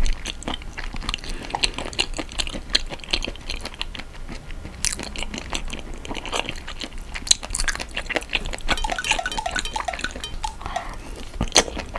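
Close-miked chewing of spicy-marinated raw shrimp and rice: an irregular run of wet, sticky mouth clicks and smacks.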